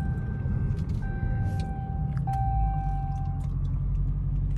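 Supercharged 6.2-litre HEMI V8 of a Dodge Hellcat Redeye running steadily at cruise, a deep low rumble. A thin steady high tone sounds over it for about two and a half seconds from about a second in.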